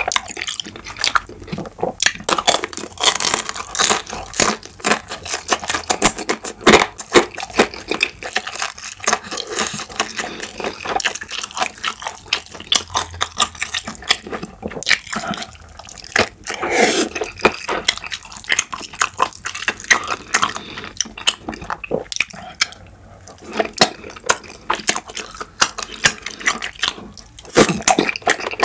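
Close-miked wet chewing and slurping of tteokbokki rice cakes and ramen noodles in thick spicy sauce: a steady run of small wet smacks and clicks from the mouth, with louder slurps every few seconds.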